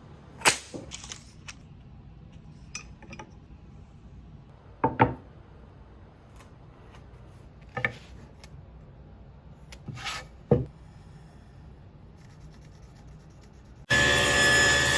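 Scattered knocks and clatters of wooden pieces and hand tools being handled and set down in a workshop. About a second before the end, a power saw cutting wood starts abruptly and runs steadily with a high whine.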